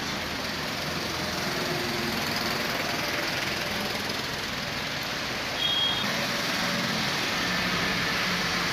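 Traffic in heavy rain: a steady wash of rain and tyres on a wet road under a low engine hum. A short, high-pitched beep sounds about five and a half seconds in.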